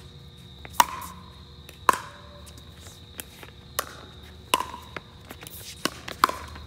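A pickleball rally: paddles striking the plastic ball, a sharp pop every second or so, six clear hits in all.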